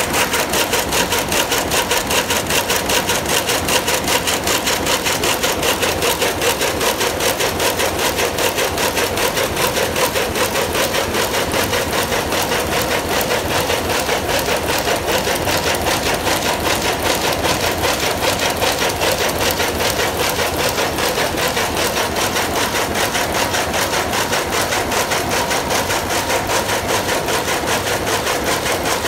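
Dornier rapier loom with an electronic jacquard head running at full speed, a fast, even mechanical clatter with each pick, over a steady whine.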